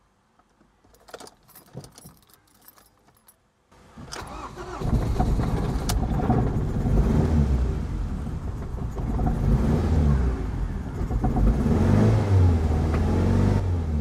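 Ford Mondeo Mk3's four-cylinder petrol engine being started with its spark plugs swapped between cylinders. Faint clicks of the key come first. About four seconds in it cranks, catches and runs roughly and unevenly, misfiring, and it sounds awful. Its level drops near the end.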